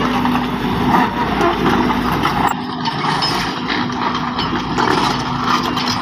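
Crawler excavator's diesel engine running steadily with a low hum. About two and a half seconds in, the sound changes abruptly and the deep rumble thins out.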